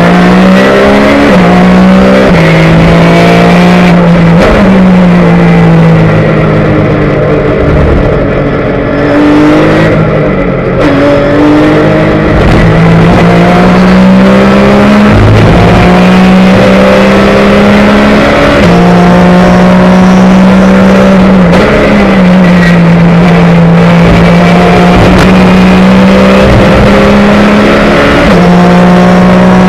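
Porsche race car's flat-six engine at racing speed, heard from inside the cockpit. The engine note climbs and then drops sharply at each gear change, and the revs sag for a few seconds about eight seconds in before picking up again.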